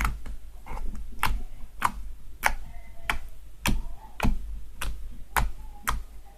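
Shaving-foam slime being squeezed and stretched by hand, giving sharp pops and clicks, about ten of them at slightly uneven intervals of roughly half a second.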